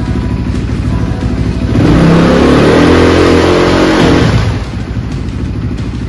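Dirt-bike engine on a snowbike conversion, running on a stand for a makeshift dyno test. It idles, is revved up about two seconds in, held high for about two seconds, then let back down to idle.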